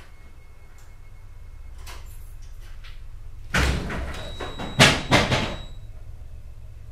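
A low steady hum, then a sudden loud clattering bang about halfway through, followed by two sharper bangs a second later that die away within about a second.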